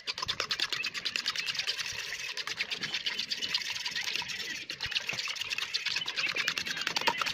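Fork beating egg batter in a ceramic bowl: rapid, even clicking of the fork against the bowl, several strokes a second.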